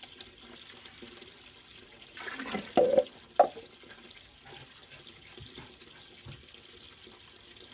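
Water running steadily as a hose fills a garden pond. About two seconds in there is a short burst of louder splashing, followed by two sharp knocks.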